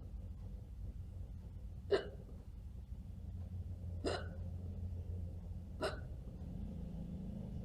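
A person hiccuping, three short sharp hiccups about two seconds apart, with a fourth right at the end. The uploader suspects the hiccups are faked.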